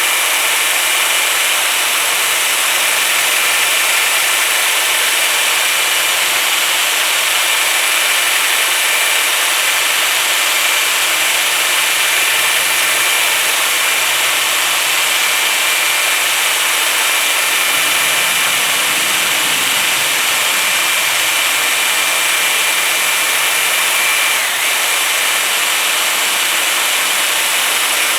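Electric drill spinning a 3-inch sanding disc against aluminum: a steady high motor whine over the hiss of the abrasive on the metal, the pitch dipping briefly about 24 seconds in. The disc is already clogged from earlier sanding.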